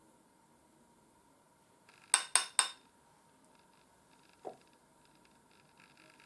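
Three quick, sharp hard clinks about a quarter second apart, then a single duller knock about two seconds later. Near the end come faint strokes of a small makeup brush sweeping highlighter powder over the cheek.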